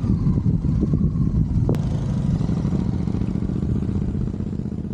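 Yezdi Scrambler motorcycle's single-cylinder engine running as the bike pulls away and rides on, easing slightly near the end. One sharp click comes a little under two seconds in.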